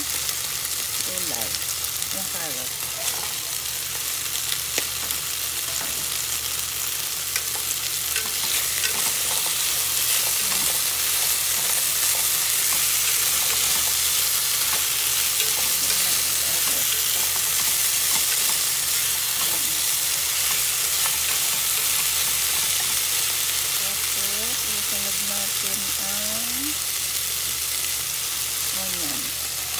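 Chicken pieces and carrots sizzling steadily in oil in a nonstick pan as they are stir-fried and turned with wooden chopsticks.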